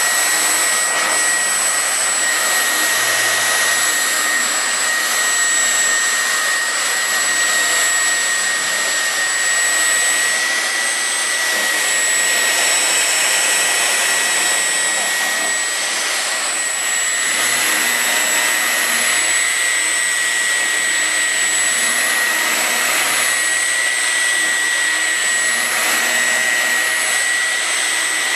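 Electric car polisher running steadily on a truck's hood, a constant motor whine with a high-pitched tone over a rushing hiss.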